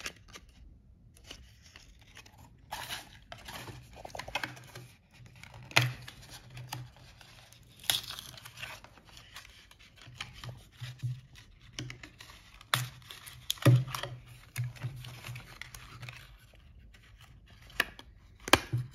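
A cardboard packaging insert being worked by hand to free a small microphone: irregular rustling, scraping and tearing of the card, broken by several sharp clicks and knocks.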